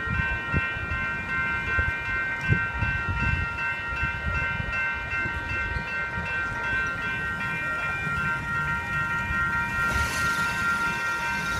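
Grade-crossing electronic bells (a General Signals Type 2 and a WCH Type 2 Generation 2) ringing steadily while the gates stay down with no train at the crossing, the sign of a crossing-signal malfunction that keeps the crossing activated.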